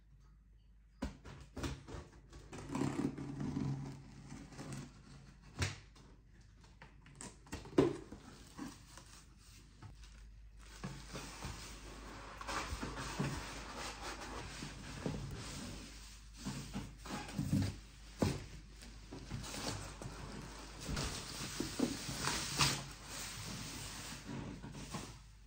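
Cardboard box and plastic packaging being handled during an unboxing: scattered knocks and scrapes as the tape is cut and the flaps opened, then steady crinkling of plastic wrap from about ten seconds in.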